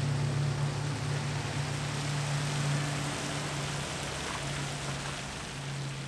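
An SUV towing a travel trailer on a rain-soaked road: a steady low engine drone over an even hiss of rain and wet tyres, easing off slightly towards the end.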